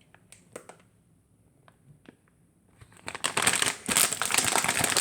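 A few faint ticks, then from about three seconds in, continuous crinkling of sweet wrappers as toffees are unwrapped by hand.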